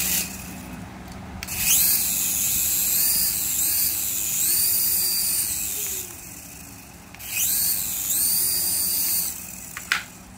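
Toy RC helicopter's small electric rotor motors running in the hand, a high-pitched whine that rises and falls in pitch as the throttle is worked. It runs up about a second and a half in, drops off around six seconds, comes back about a second later and dies away near the end.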